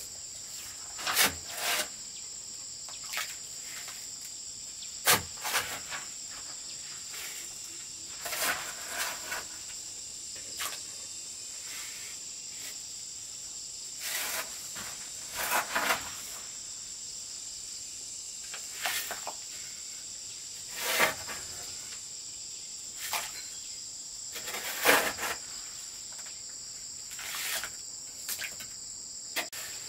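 Insects buzzing steadily in a high pitch, with short knocks and scrapes every few seconds from hand work on a building site.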